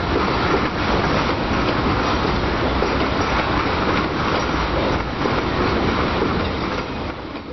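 Covered hopper cars of a freight train rolling past close by: steady noise of steel wheels running on the rails, dying away near the end as the last car goes by.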